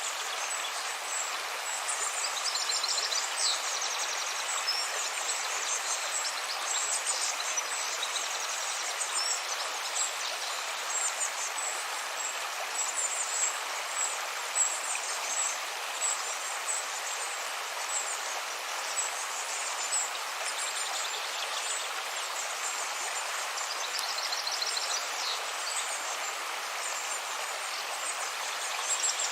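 River water flowing steadily, with birds chirping high above it at intervals, in short rapid trills.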